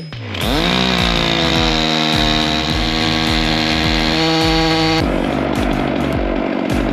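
Stihl MS 661 C-M chainsaw running loud and steady at high revs, cutting through a big log in a Logosol F2 Plus chainsaw mill. The sound turns noisier about five seconds in.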